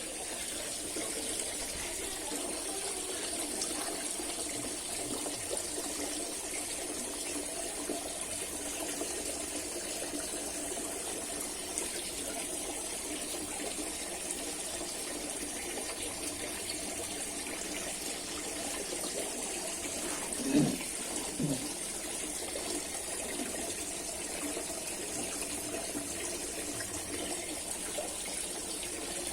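Heavy rain falling steadily. Two short voice-like sounds cut through it a little after twenty seconds.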